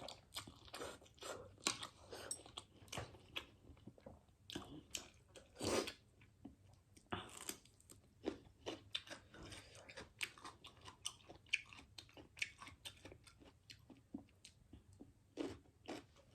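Close-up eating sounds: wet chewing and lip smacks, with a couple of longer noodle slurps about six and seven seconds in.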